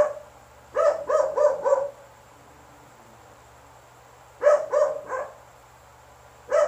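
A dog barking in short runs of three or four quick barks, about three a second, with pauses of a couple of seconds between runs.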